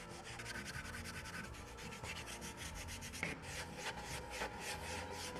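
Climbing brush scrubbing chalk off a bouldering hold: quick, repeated rubbing strokes.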